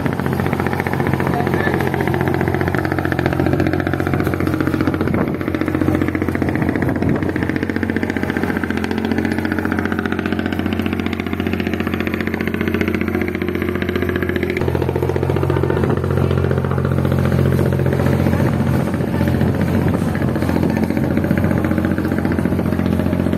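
Riverboat engine running steadily under way, heard on board, with a low even drone and hiss of water and wind. Its note changes abruptly about fifteen seconds in.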